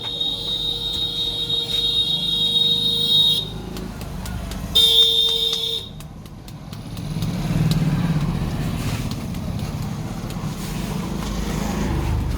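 Vehicle horn held in two blasts, a long one of about three seconds and a short one of about a second, followed by the low rumble of a passing motor vehicle that swells about seven seconds in.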